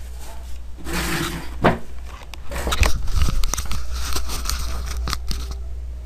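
Rustling and crackling noises with scattered sharp clicks, densest in the middle, over a steady low hum.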